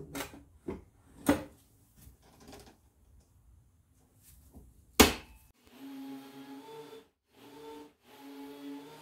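Wooden knocks and clicks as an ash board is handled onto the infeed table of a Dewalt DW734 benchtop planer, then a single loud knock about five seconds in, followed by a steady low hum that drops out briefly a couple of times.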